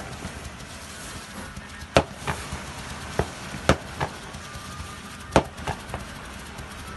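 New Year's Eve fireworks going off: about eight sharp bangs at irregular intervals, the loudest about two seconds in and again past the middle, with a brief thin whistle between them.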